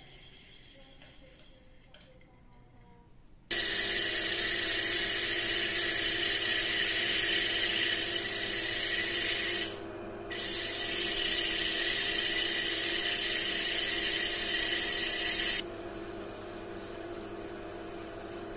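Wood lathe running with sandpaper held against the spinning wooden bowl: a loud steady hiss over the motor's hum, sanding the surface smooth. The hiss starts suddenly about three and a half seconds in, breaks off briefly around ten seconds, and drops away a few seconds before the end, leaving the quieter hum.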